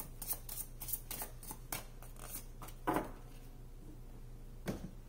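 Tarot cards handled by hand: a quick run of light card snaps from shuffling for the first two seconds, then two louder soft slaps about three and almost five seconds in as the drawn cards are laid down.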